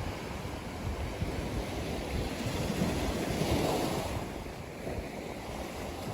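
Ocean surf on a beach, steady wash with one wave breaking and swelling loudest about halfway through, and wind rumbling on the microphone.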